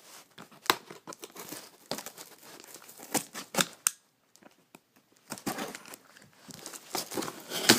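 Packing padding in a shipping box crinkling and rustling as it is handled and pulled out, in irregular sharp crackles with a pause of about a second midway.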